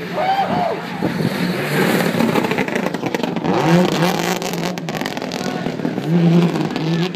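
Subaru Impreza rally car's flat-four engine revving hard as it slides through loose gravel, its pitch rising and falling with the throttle, along with a hiss of gravel spray from the tyres.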